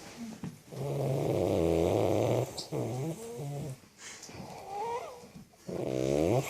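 A woman snoring loudly: one long, low snore starting about a second in and lasting about a second and a half, then shorter uneven snores, a brief rising whistle, and a last snore that slides down in pitch near the end.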